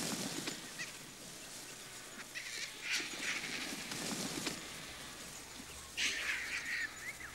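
A crowd of vultures squabbling over a carcass: scattered harsh, shrieking squawks and hisses, the loudest bunches about three, four and a half and six seconds in.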